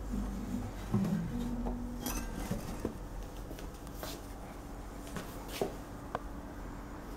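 Handling noise from a Yamaha LS-36C acoustic guitar being turned over on a sofa: a few short low tones and a jolt in the first two seconds, then scattered light clicks and knocks against its body.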